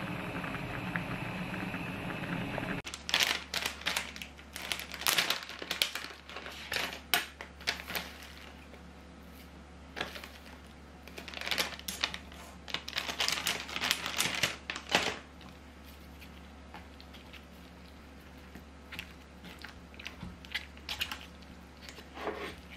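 A pot of seafood noodle soup boiling on a gas stove for about three seconds, then plastic packaging crinkling and rustling in two long spells of short crackles, followed by a few light clicks of chopsticks in the pot near the end.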